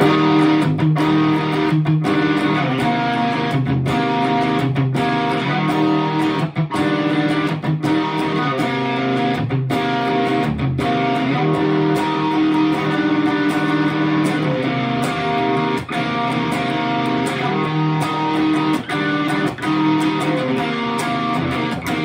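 Electric guitar riff played through a Bad Cat Two Tone preamp pedal on its main distortion channel, with a little delay, through a Bad Cat amp head. Chords ring out with brief stops between phrases.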